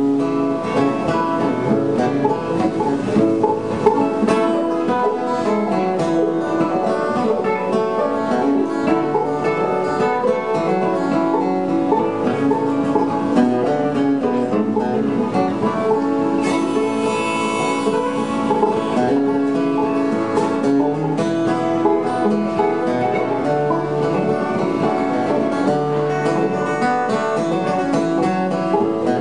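Bluegrass band playing an instrumental passage: acoustic guitar strumming under rolling five-string banjo picking, with mandolin.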